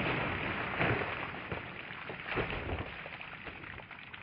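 Water from bullet-struck plastic water jugs splashing and spilling off a table, fading away, with a couple of brief louder splashes about one and two and a half seconds in.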